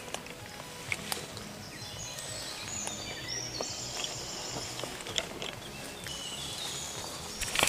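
Woodland ambience: birds singing high, thin phrases in the trees, with a few small clicks and rustles of gear or leaves.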